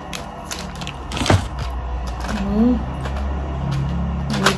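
Plastic and cardboard baby-product packaging crinkling and rustling as it is handled, with a louder knock about a second in. A low steady hum comes in under it.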